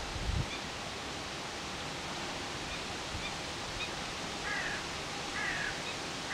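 Steady outdoor background hiss with faint bird calls: a few short high chirps, then two brief descending calls in the second half. A brief low rumble about half a second in.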